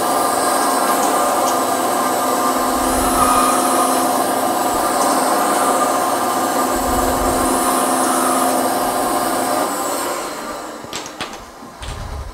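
Bandsaw running and crosscutting square cherry stock into short glue blocks. About ten seconds in the saw is switched off and winds down, followed by a few knocks of wood being handled.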